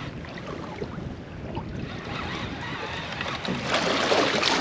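Wind buffeting the microphone over water lapping against a small boat's hull, with a louder rush of noise near the end.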